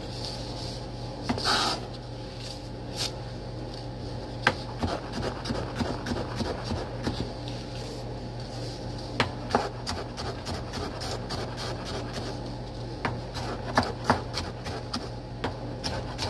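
Chef's knife dicing red onion on a cutting board: irregular knocks of the blade on the board, at times in quick runs, with a louder scrape about a second and a half in. A steady low hum runs underneath.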